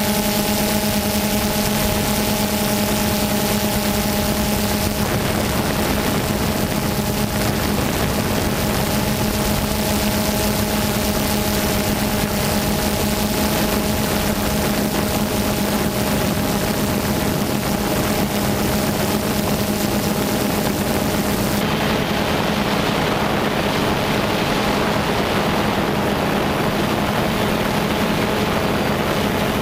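DJI Phantom 2 quadcopter's electric motors and propellers, heard from the camera mounted on the drone, making a steady buzz in flight over a hiss of rushing air. About three-quarters of the way through, the high hiss drops away while the buzz carries on.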